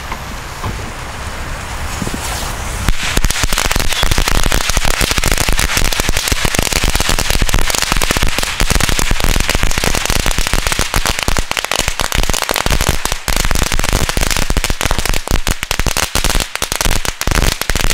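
Rabiator 500 black-powder firecracker chain going off. A hiss for the first few seconds gives way to a dense, unbroken run of really loud bangs lasting about fifteen seconds, which stops suddenly near the end.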